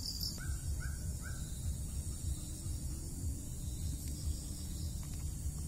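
A bird calls three times in quick succession, short calls about half a second apart, over a steady high buzz of insects.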